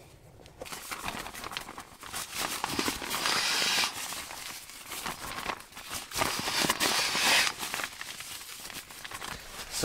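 Nylon sleeping bag and its stuff sack rustling and crinkling as they are handled and pulled apart, in bursts that are loudest about three seconds in and again around seven seconds.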